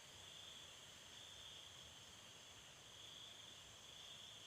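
Faint, steady chorus of crickets trilling at night, one continuous high-pitched drone.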